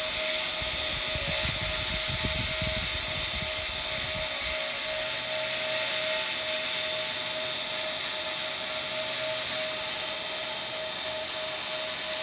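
Small electric motor driving the cutter on a homemade rose engine lathe, running with a steady high whine while the cutter engraves a pattern into a disc. There is some low rumbling over the first four seconds or so.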